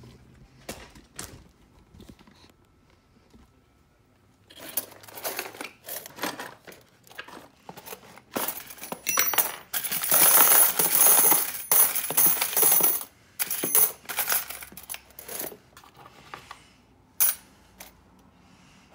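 Loose brass key blanks clinking and rattling against each other as a hand rakes and presses down a heap of them in an overfilled plastic bin. Scattered clinks at first, then a dense clatter from about four seconds in, loudest a little past halfway, thinning to odd clinks near the end.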